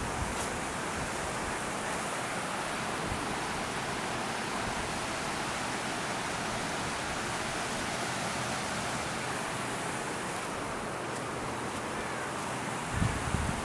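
A fast glacier-fed river running high with snowmelt, its water rushing as a steady, even noise. A couple of low buffets hit the microphone near the end.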